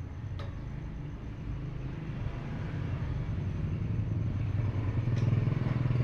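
A motor engine running steadily, its low drone growing louder toward the end, with a sharp click about half a second in and another near the end.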